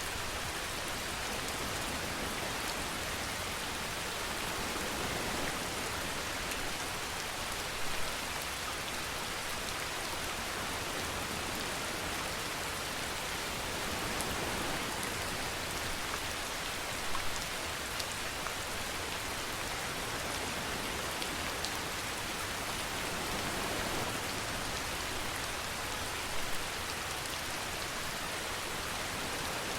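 Steady rainfall: an even hiss of rain falling on surfaces, with a few louder single drop hits scattered through.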